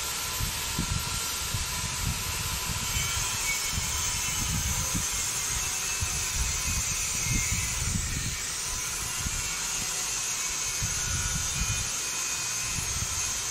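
Steady whooshing background hiss, with soft, irregular rubs and bumps from a watercolor pencil shading on paper.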